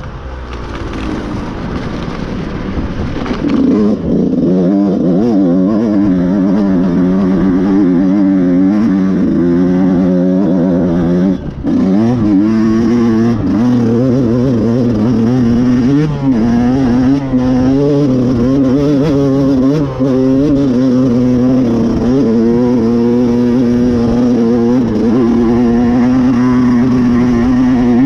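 Off-road vehicle engine pulling hard on a loose dirt climb. The note climbs over the first few seconds, then keeps rising and falling with the throttle, with short lifts off the throttle about eleven seconds in and again near twenty seconds.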